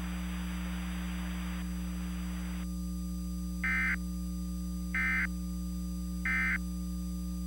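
Emergency Alert System end-of-message (EOM) signal: three short bursts of digital data tones, about 1.3 seconds apart, over a steady electrical hum. A background hiss cuts off about two and a half seconds in.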